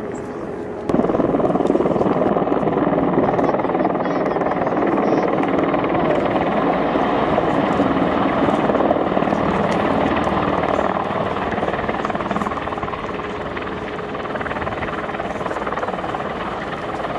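CH-53 heavy transport helicopter, its rotor and turbines running loud as it hovers low and sets down on the runway. The sound jumps suddenly louder about a second in and eases off slightly in the second half.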